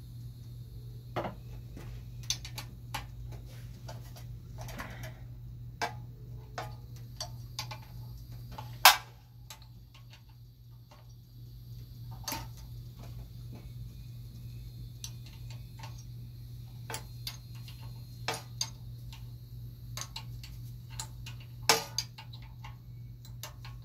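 Ratchet socket wrench clicking in scattered short runs as bolts are worked loose on a small generator engine. A louder sharp knock comes about nine seconds in and another near the end, over a steady low hum.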